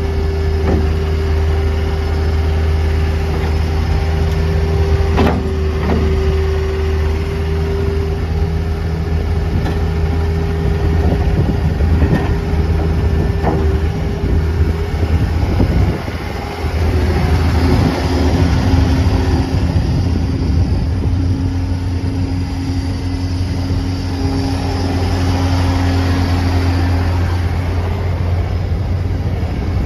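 The 60 hp Yanmar diesel engine of a John Deere 318E skid steer loader running steadily, with a higher steady whine that drops to a lower pitch about halfway through and a few knocks about five seconds in.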